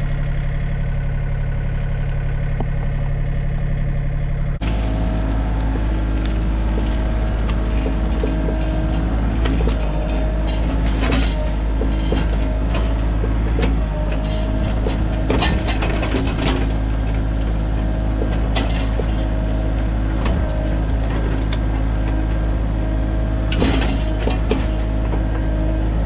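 Sany mini excavator's diesel engine running steadily under work, its note changing abruptly about four and a half seconds in. Scattered sharp cracks and knocks come through over the engine, a cluster near the end.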